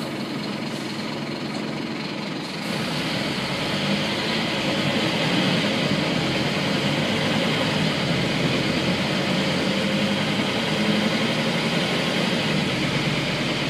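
Scania N230UB single-deck bus's five-cylinder diesel engine running, with rumble and hiss heard inside the passenger saloon; about two and a half seconds in it grows louder and stays louder, as the bus gets under way.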